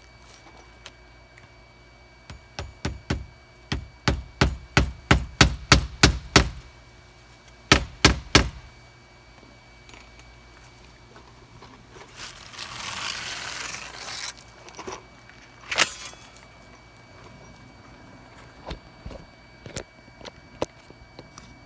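A hammer driving nails through asphalt roofing shingles into a plywood roof: a quickening run of about fourteen blows, a short pause, then three more. A few seconds later comes a rustling scrape and one more single knock, over a faint steady hum.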